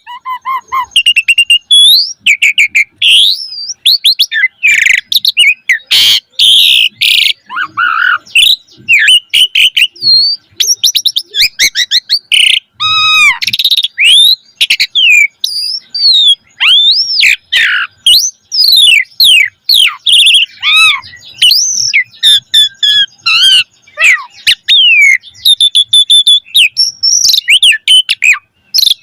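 A pied starling (jalak suren) singing hard, a fast run of whistles that rise and fall, mixed with harsh scratchy notes and clicks. Its song is packed with borrowed phrases from other birds (full isian).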